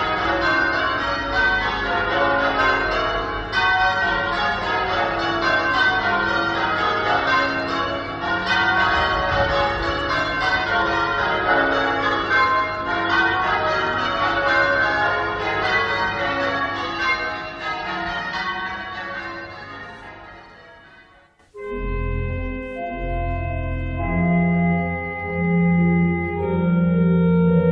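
Church bells ringing rapidly with many overlapping strikes, fading away about 20 seconds in. A moment later a church organ begins, playing steady held chords with a deep bass.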